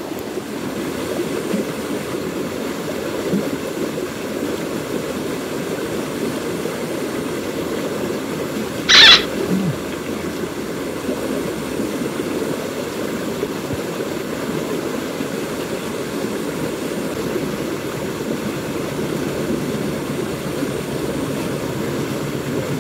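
Steady rush of river water flowing past the bank, with one short, loud, sharp sound about nine seconds in.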